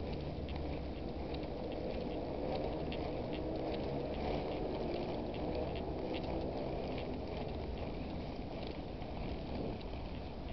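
Steady low rumble with light, irregular ticking: the sound of a camera carried on foot, with footsteps and handling noise over wind on the microphone.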